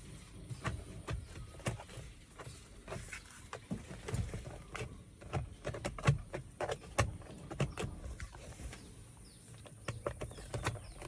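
Upper plastic steering column cover of a Toyota Grand Innova being worked loose by hand, giving irregular clicks and knocks of the plastic trim.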